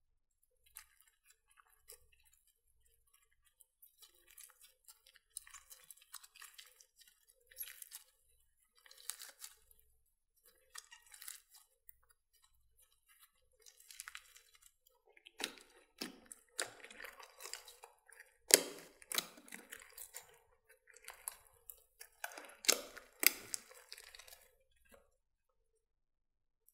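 Glossy slime studded with foam beads being kneaded and stretched by hand: soft, irregular sticky crackles and squelches that grow louder about halfway through, with a few sharp pops as the slime is pulled apart.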